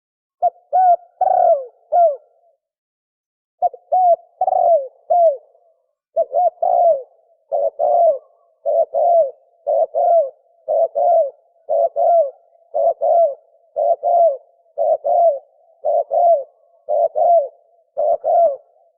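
Spotted dove cooing in the fast 'thổ còi' style, short hooked coo notes in quick succession. After a brief pause about three seconds in, the coos run on as steady pairs roughly a second apart. This fast call is used to excite and lure other doves.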